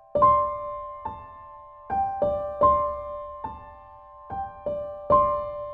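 Slow solo piano music: single notes and small chords struck one after another, each ringing and fading before the next.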